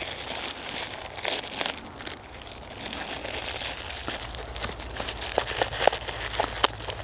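Plastic wrapping crinkling and tearing as a folding pocket knife is unwrapped by hand: a steady run of small crackles and rustles.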